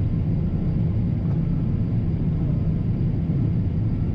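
John Deere T670i combine harvester running with a steady low drone while harvesting.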